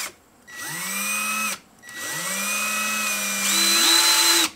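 Ryobi 18V cordless impact driver and 3/8-inch impact wrench run free with no load: two runs of a steady motor whine that rises quickly as each starts, with a short gap between them, the second stepping up to a higher pitch near the end. The two tools sound different, which the owner guesses might be just the hex spinning extra.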